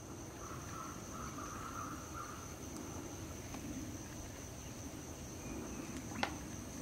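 Faint wetland ambience with a steady, high-pitched insect trill, and a single sharp tick about six seconds in.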